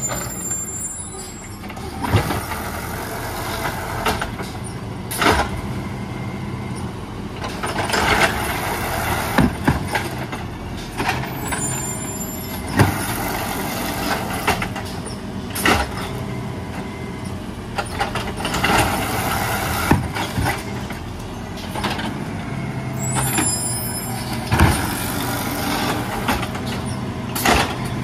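Peterbilt 320 automated side-loader garbage truck on natural gas running at the curb while its arm lifts and dumps wheeled trash carts, with repeated bangs and knocks of carts against the hopper. Short air hisses come three times: near the start, about midway and a few seconds before the end.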